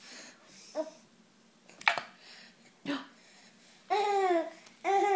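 A woman's short, sharp hiccups in the first three seconds, then a baby laughing in two high-pitched bursts near the end.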